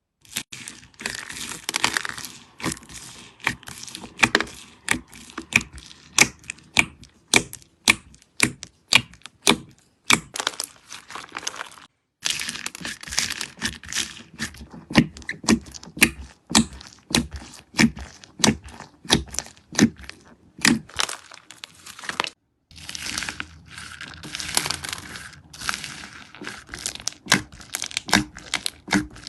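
Slime being squeezed, poked and stretched close to the microphone, giving a rapid, irregular run of sharp pops, clicks and crackles. It breaks off twice for a moment of silence between clips.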